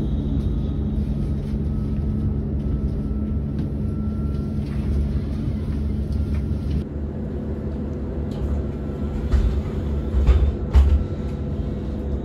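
Solaris Urbino 18.75 electric hydrogen fuel-cell bus humming steadily, with several steady tones and a faint, slowly rising whine. About halfway through the sound changes to the inside of the moving bus, with several knocks and rattles.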